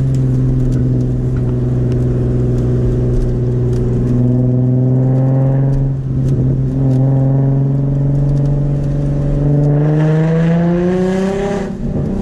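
Nissan V6 with an aftermarket Tomei exhaust and ISR Y-pipe, heard from inside the moving car: it pulls steadily in third gear with a brief dip about six seconds in. About ten seconds in it accelerates with a rising note, then the throttle is lifted sharply just before the end.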